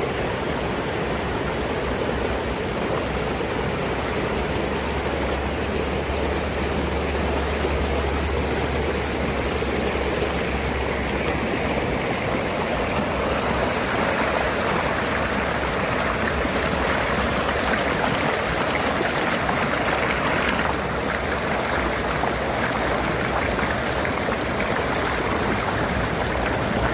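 Forest river flowing: a steady rush of water, growing brighter and fuller about halfway through, with a low rumble under it for roughly the first ten seconds.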